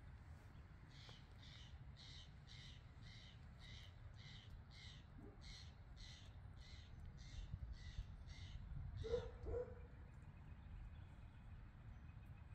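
A bird calling a long, even series of short, high notes, a little over two a second, which stops about nine seconds in; just then come two short, lower and louder sounds.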